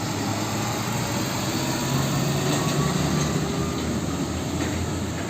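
Truck engine running steadily with a low hum, an engine sound effect laid over the red toy truck.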